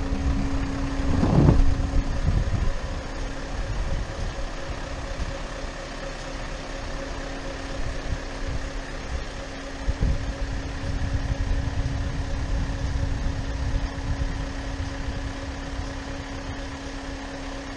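Scania lorry's diesel engine idling, a steady hum over a low rumble.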